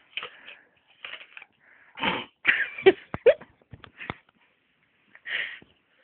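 A man biting and chewing a mouthful of apple fast, with crisp crunches and noisy breaths. A run of sharp crunches comes about three seconds in.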